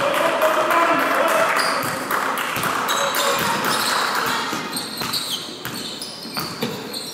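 Basketball game in a sports hall: spectators' applause dying away over the first few seconds, while the ball bounces on the court and short high sneaker squeaks come through.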